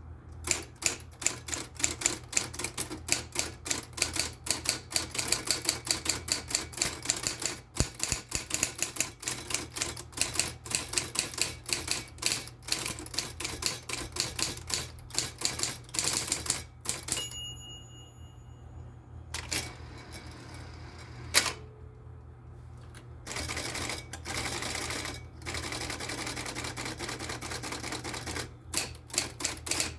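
Royal Aristocrat electric typewriter at work: a steady motor hum under rapid key strikes, which pause about halfway for a brief high ring, then a single loud clack and stretches of steady mechanical whirring before the typing resumes near the end.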